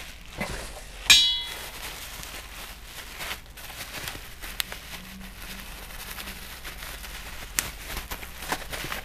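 Heavy-gauge steel dead pedal pieces being unpacked and handled: one sharp metal clang with a short ring about a second in, then a few light knocks and handling noise.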